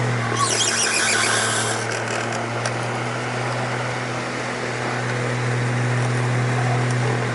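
Squeaky oscillating fan running with a steady motor hum. About half a second in, it gives one squeal lasting about a second and a half that sounds like a horse neighing.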